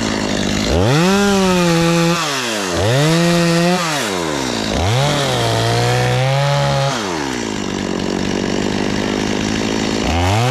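Two-stroke chainsaw cutting through dead pine limbs: the engine revs up three times in quick succession, its pitch sagging while the chain bites into the wood, drops back to idle for a few seconds, then revs up again near the end.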